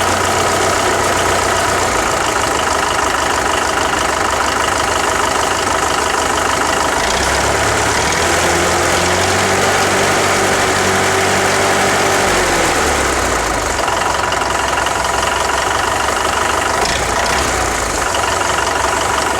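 Farmall diesel tractor engine idling, with its sheet metal and emblems buzzing from the vibration. Between about 7 and 13 seconds in, the engine note rises, holds, then settles back to idle.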